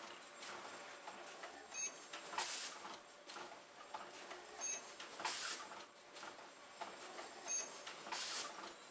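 Automatic headband-earloop folding mask machine running, with a steady clatter and a repeating cycle about every three seconds: a brief high chirp, then a short hiss a moment later. Each cycle is one finished mask, at the machine's rate of about 20 masks a minute.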